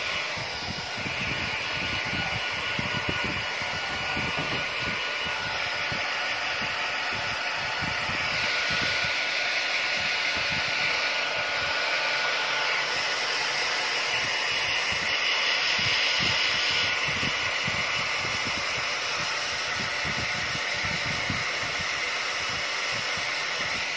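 Handheld hair dryer blowing steadily on a dog's coat: a continuous airy hiss with a faint steady whine, its hiss brightening and dulling a few times.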